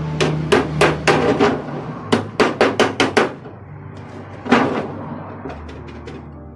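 Pliers striking thin tinplate sheet of an oil tin, used as a hammer to tap down and fold its edges. There are a few strikes, then a quick run of about seven, then one loudest strike about four and a half seconds in.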